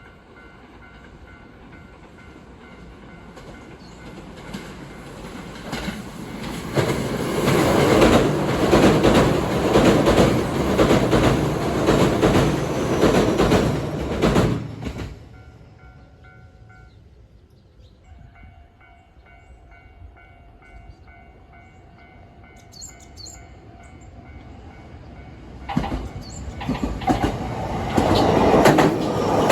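Trains running past a railway level crossing while its warning bells ring steadily. One train's wheels clatter over the rails from about seven seconds in until about fifteen seconds, and a second train starts passing near the end.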